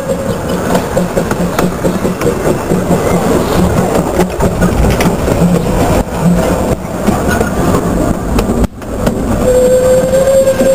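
Steam train rolling directly overhead, its wheels rumbling on the rails with repeated clicks from the rail joints. A steady tone joins near the end.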